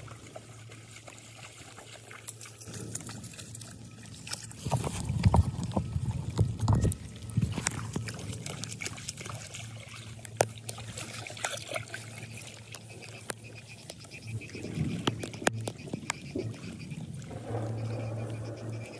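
Shallow floodwater splashing and trickling, with scattered small splashes and knocks; the splashing is loudest about five to seven seconds in.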